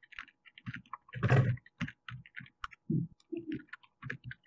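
Computer keyboard being typed on: irregular clicks and taps, with one louder thump about a second in.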